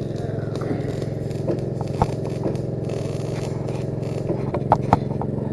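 Engine-drive welder's engine running steadily under the work, with a few sharp snaps and crackles from a MIG arc sputtering on constant current, a sign that the wire feed is set too low.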